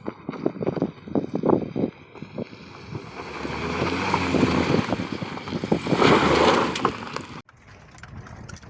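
Honda CR-V driving off road: a run of knocks and clunks, then a rising rush of noise for several seconds that cuts off abruptly near the end.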